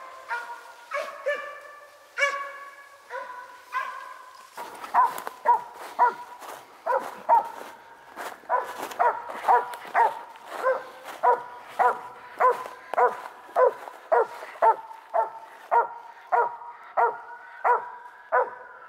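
A cur squirrel dog barking treed at the base of a tree, a steady, evenly paced chop of a little under two barks a second that settles in about four and a half seconds in. This bark signals a squirrel treed up that tree.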